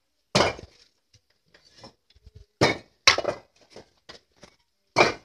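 Bricklaying: bricks and a mason's tools knocking and clinking on the brickwork as bricks are set into fresh cement mortar, four sharp loud knocks among lighter clicks.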